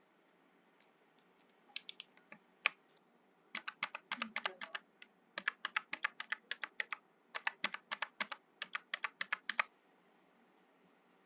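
Typing on a mechanical keyboard: a few scattered keystrokes, then three quick runs of key clicks that stop about two seconds before the end.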